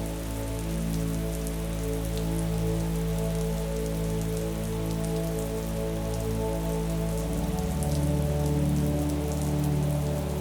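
Steady rain falling, an even hiss with many small drop ticks, mixed with soft sustained music whose chord changes about seven seconds in.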